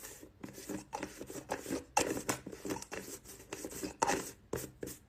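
Lids being handled for ASMR: twisted, tapped and snapped on and off containers, a quick run of short clicks and scrapes.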